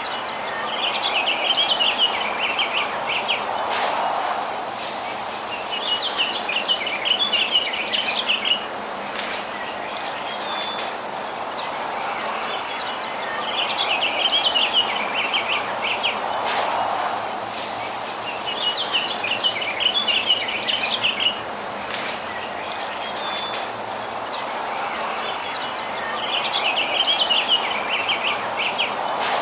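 Small birds chirping in bursts of rapid, high chirps a couple of seconds long, recurring every few seconds over a steady background hiss.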